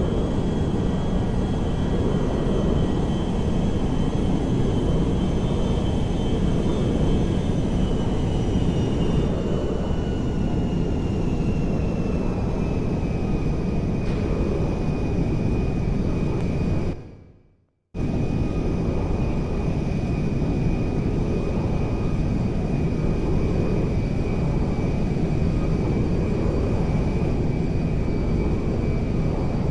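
Aircraft engine running steadily: a loud even rush with a high whine over it that drops slightly in pitch partway through. About halfway through, the sound fades out briefly and cuts back in abruptly.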